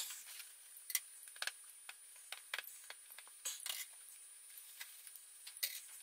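Faint scattered clicks and light taps as the plastic-framed mesh air intake filter from a Navien tankless water heater is handled and rubbed dry with a towel.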